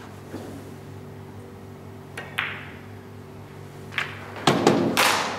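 Snooker balls: a light click of the cue tip on the cue ball, then a crisp click of ball on ball about two seconds in as the last ball of the clearance, the black, is potted. Near the end comes a run of loud knocks, over a steady low hum.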